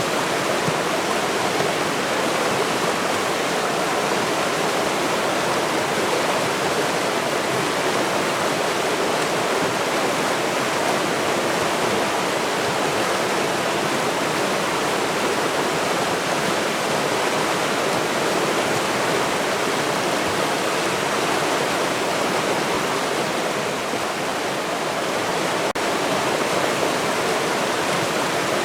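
River water rushing in a steady, even stream.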